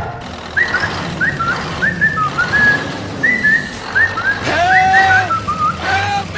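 A whistled tune of short, quick rising notes, about two or three a second, with a lower held note sounding twice in the second half.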